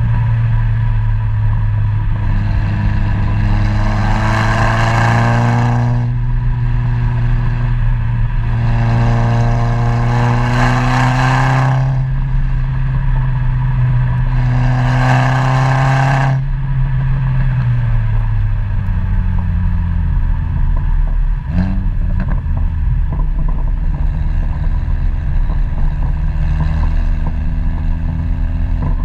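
A road vehicle's engine and exhaust, heard from a camera mounted on its rear while it is driven. Three times the revs climb, with rising pitch and a strong rush of noise, each pull lasting a few seconds. Then the engine eases off and slows, with a brief knock a little after that.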